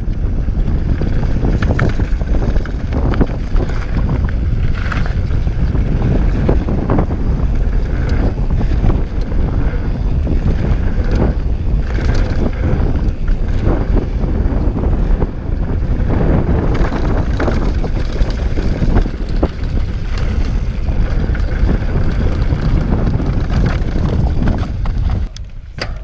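Wind buffeting the camera microphone and the Scott Voltage 720 mountain bike's tyres on a dry, rocky dirt trail during a fast descent, with frequent clicks and rattles from the bike. The noise drops sharply about a second before the end as the bike slows.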